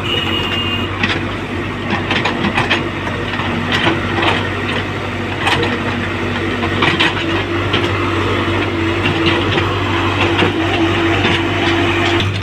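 Excavator's diesel engine running steadily as the machine works, with a hum that grows louder about four seconds in and scattered short clanks. A brief high tone sounds at the start.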